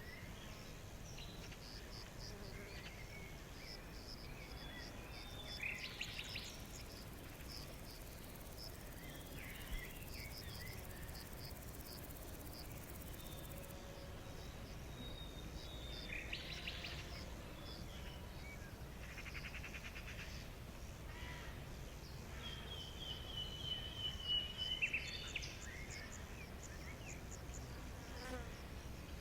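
Outdoor nature ambience: insects chirping in a steady repeating pattern, with scattered louder buzzy trills and bird-like calls over a low steady background hiss.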